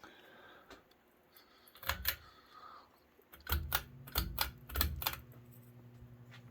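A series of sharp clicks as the Aloha Breeze hugger ceiling fan is switched on, then its motor starting a steady low hum about three and a half seconds in.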